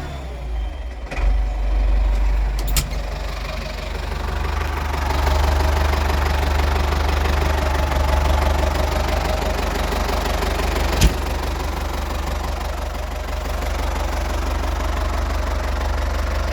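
Ford 5610 tractor's four-cylinder diesel engine running steadily with a deep low drone. A few light clicks come early on, and a single sharp click stands out about eleven seconds in.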